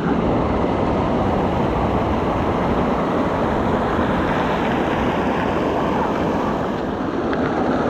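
Steady rush of a waterfall pouring into a pool close by.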